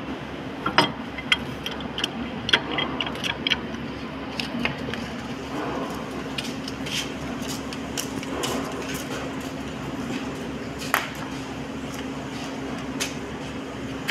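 Steady electric machine hum, with scattered light metallic clicks and taps in the first few seconds and a sharper one about eleven seconds in.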